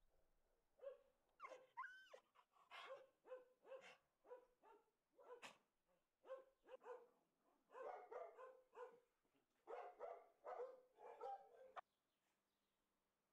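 A dog barking faintly and over and over, in a quick string of short barks and yelps, with one drawn-out call near the start that rises and falls in pitch. The barking cuts off abruptly near the end.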